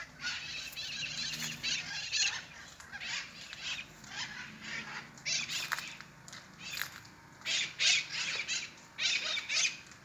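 A flock of mitred conures screeching: harsh squawks that overlap densely for the first two seconds, then come as many separate calls.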